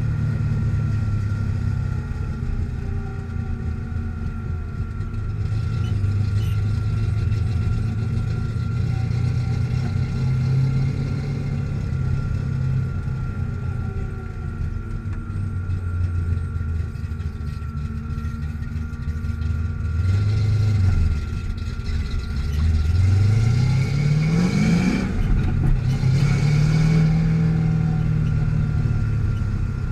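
Ford Mustang engine running, its note rising and falling slowly, with a quick rev that rises and drops back about two thirds of the way in and a second, held rev after it.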